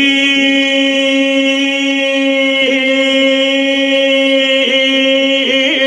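A man's voice holding the word 'Ali' of a manqabat (Urdu devotional song in praise of Hazrat Ali) as one long sung note into a microphone, with no instruments. The pitch holds steady, with brief dips twice and a wavering turn near the end.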